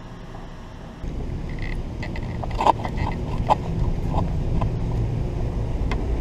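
Wheeled cart rolling across a concrete floor: a low rumble with rattling metal clatter, starting about a second in.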